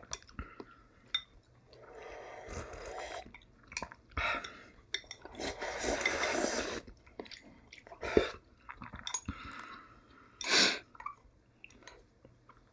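Instant noodle soup being eaten: several slurps of noodles and broth, chewing, and short clicks of chopsticks against a bowl.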